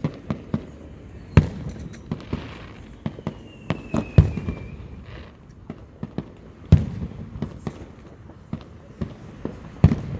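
Fireworks going off: four loud booms a few seconds apart, with many smaller bangs and pops between them. A faint falling whistle runs through the middle.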